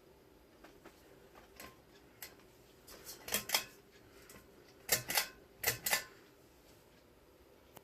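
Sharp clicking and rattling in short clusters, loudest in three bunches from about three to six seconds in, over a faint steady hum.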